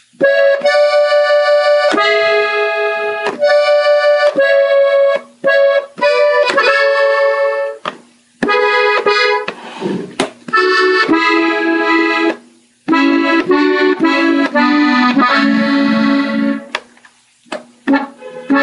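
Gabbanelli three-row button accordion played slowly: melody phrases separated by short pauses, with lower notes sounding for a stretch near the end.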